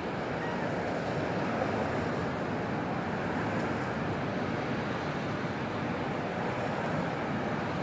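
Steady urban background noise, an even wash with no distinct events.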